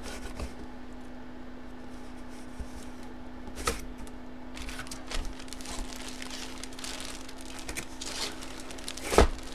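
Handling of a cardboard box and a plastic-bagged jersey: the lid lifted and the bag rustling and crinkling as it is pulled out, with a few knocks, the loudest near the end. A steady low hum runs underneath.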